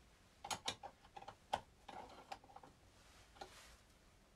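Light metallic clicks and taps from a hex driver and small suspension parts being handled on an RC car's front end while camber shims are fitted: about half a dozen sharp ticks in the first two and a half seconds, then a soft rustle.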